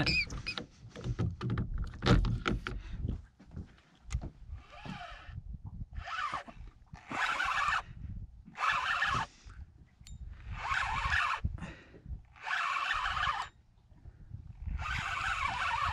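Spinning reel being wound in short bursts of about a second each, seven times, with pauses between, as a hooked fish is reeled up. Before the winding starts there are a few seconds of knocks and handling noise.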